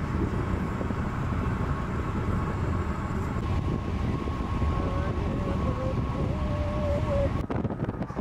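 Steady low rumble of road and engine noise inside a moving car, with a faint thin whine. Near the end it changes abruptly to a rougher, gusty noise.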